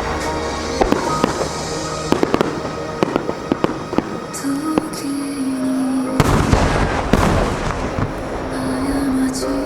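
Starmine aerial fireworks bursting in a rapid string of bangs and crackles, with one heavy burst about six seconds in, over the music played with the show.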